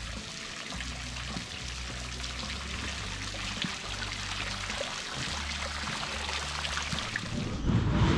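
Stone fountain splashing and trickling, water falling from its jets and statues into the basin, with faint music underneath. Near the end a louder low rumble comes in.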